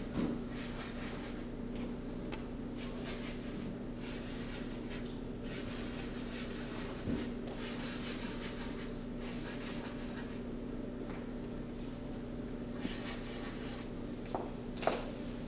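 Scratchy rubbing strokes of a drawing tool on a large cardboard board, coming in repeated patches of about a second with short gaps, over a steady low hum, with a light knock about seven seconds in.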